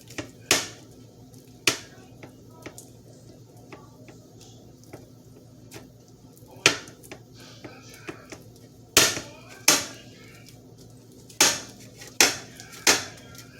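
Utensil clinking and scraping against a plastic cup while stirring sticky slime: irregular sharp clicks and knocks, a few much louder than the rest, over a faint steady hum.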